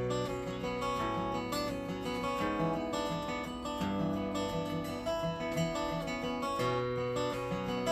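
Flatpicked acoustic guitar playing the instrumental introduction to a song, picked melody notes over a steady bass-and-rhythm pattern.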